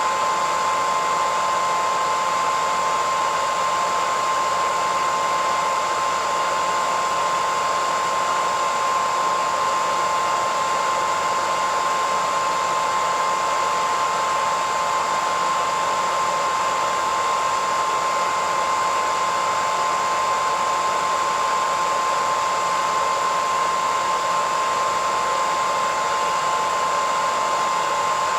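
Hairdryer running steadily: an even rush of blown air with a constant high whine from its motor and fan.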